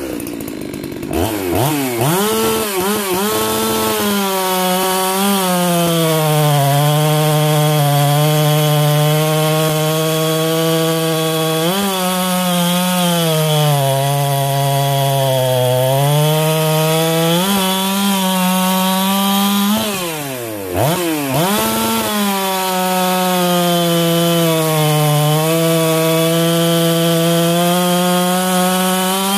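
Husqvarna 372XPW two-stroke chainsaw at high revs, cutting through a large log. The engine note rises as it revs up at the start. It then sags and recovers several times as the chain bites into the wood and eases off. About two-thirds of the way through, the revs drop sharply before climbing back.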